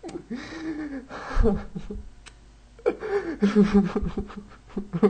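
A man's wordless vocal sounds in three or four short bursts with pauses between, breathy and laugh-like rather than words.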